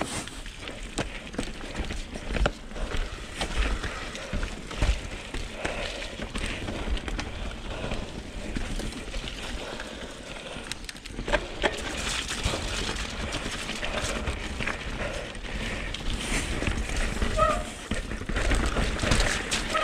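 Mountain bike descending rough, rooty singletrack: tyres rolling over dirt and rock with a constant rattle of knocks and clicks from the bike, under a low rumble of wind on the microphone.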